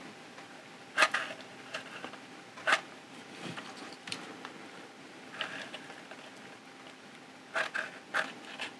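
Handling sounds of hot-gluing cells into a plastic battery housing: a few sharp clicks about a second in, again near three seconds, and a quick cluster near the end, with faint scrapes in between.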